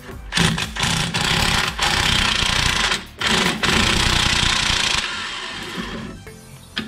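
Impact wrench rattling on the suspension bolts, undoing the upper trailing arms: two long bursts with a short pause between them about three seconds in, ending about five seconds in.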